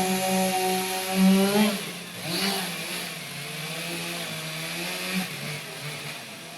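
Two-stroke chainsaw running at high revs, cutting a notch into a large log; about two seconds in it eases off and runs on more quietly before fading near the end.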